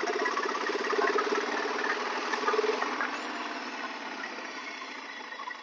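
BSA Gold Star 650's single-cylinder engine idling with an even, rapid beat. It grows quieter over the second half.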